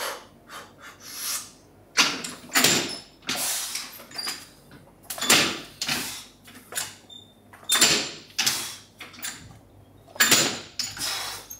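Sound of a set of single-arm landmine presses: about four reps, starting about two seconds in, each heard as a short pair of noisy bursts, the reps about two and a half seconds apart.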